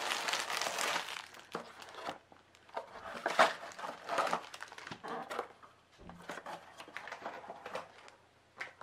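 Plastic wrapping on a diamond painting kit crinkling in irregular bursts as it is pulled open and the clear bags of drills and tools are taken out.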